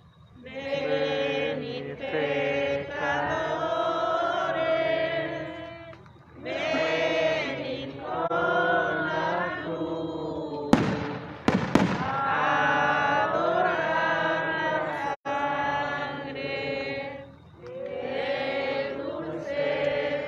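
Procession participants singing a religious hymn together in phrases with short breaks. About halfway through, a few sharp firecracker bangs go off in quick succession.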